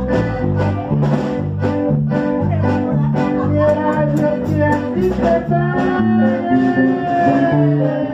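Live norteño-style band playing: a piano accordion carries the melody over an alternating electric bass line, with electric guitar and drums keeping a steady beat.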